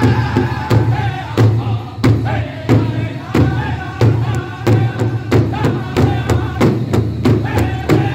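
Powwow drum group singing a chicken dance song in high unison voices over a steady, even beat struck on a large hide powwow drum with several drumsticks at once.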